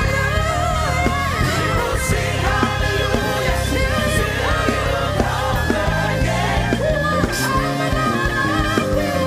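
Live worship music: a band playing with a steady bass line and cymbal hits, under a singer's voice.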